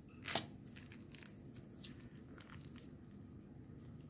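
Plastic piping bag crinkling and cookie dough squishing as it is piped onto parchment paper, with small crackles and a sharp click about a third of a second in.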